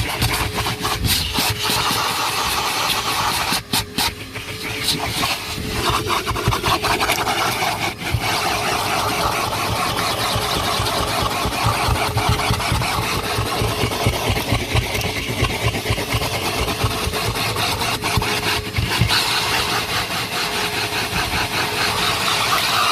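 Numatic NTD570 commercial vacuum cleaner running, a steady motor whine over a loud rush of sucked air, its level dipping briefly about four seconds in and again near eight seconds as the nozzle works over the car.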